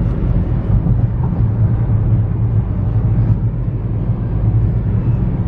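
Steady low rumble of a car driving on a highway, heard from inside the cabin: tyre and engine noise with no sudden events.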